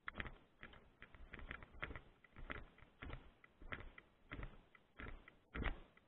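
A small hand tool clicking and rattling against the metal bolts of a microwave dish antenna's feed hub as they are turned, in short clusters of clicks about every half second.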